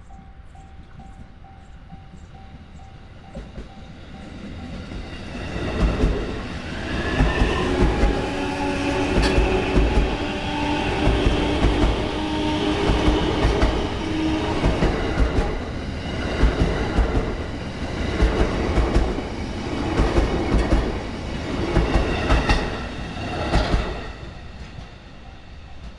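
A JR East 233 series electric train passing slowly over a level crossing, its wheels clacking over the rail joints in paired beats about every two seconds as each car goes by, over a low rumble and hum. A level crossing warning bell rings before the train arrives and again as it clears, about 24 seconds in.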